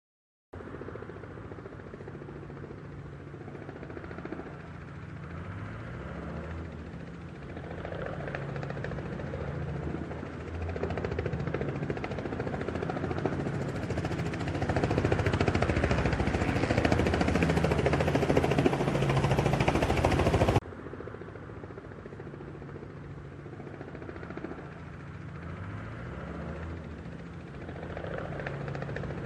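Helicopter sound effect of an approaching, landing helicopter: rotor and engine noise growing steadily louder. About two-thirds of the way in it cuts off suddenly, drops back to a quieter level and builds again near the end.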